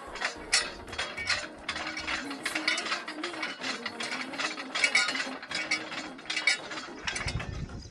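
Hand-cranked geared winch of a borewell motor-pulling rig being turned: its cast spur gears clatter and click in a rapid, uneven run of clicks as the handwheel goes round.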